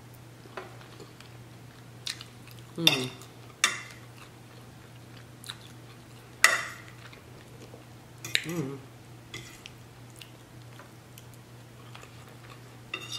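Eating sounds: chewing and wet mouth noises over soft curry and rice, with a few sharp clicks of a metal fork against a plate, the loudest a little past halfway. A low steady hum runs underneath.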